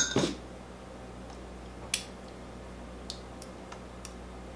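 A metal utensil clinking against a glass measuring cup of sauce. There is a sharp clink or two at the start, another about two seconds in, and a few light ticks a second or so later, over a low steady hum.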